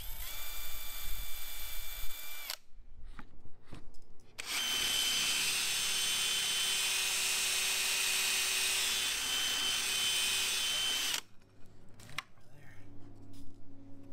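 Cordless drill turning a Forstner bit through a Kreg hinge jig into a white plastic panel: a short run of about two and a half seconds, a pause, then a steady run of about seven seconds with a high whine. A few light clicks and knocks follow as the drill stops.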